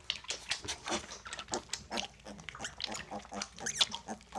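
Mini piglets lapping and slurping goat's milk from a shallow dish: a fast, irregular run of wet smacks and clicks.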